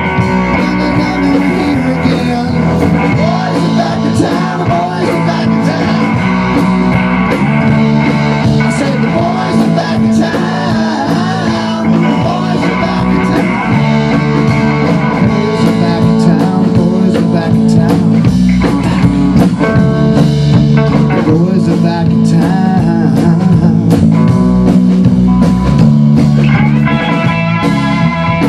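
A rock band playing live in a blues-rock style: electric guitar, electric bass and drum kit together, loud and steady.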